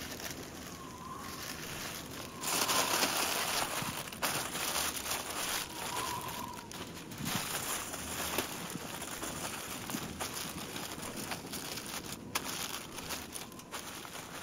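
Aluminium foil being crumpled and pressed by hand around a whole lamb, crinkling and crackling. It gets louder about two and a half seconds in.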